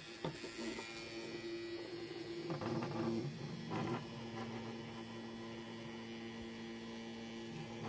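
Rechargeable nose and ear hair trimmer running, laid on a wooden desk: a steady electric hum at an even pitch. Brief handling noises come through about three and four seconds in.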